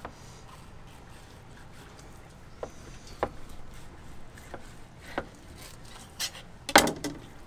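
A 9-inch narrow, flexible fillet knife working along the skin of a gag grouper fillet on a fillet table: soft scrapes and a few scattered ticks, with a louder cluster of scrapes near the end.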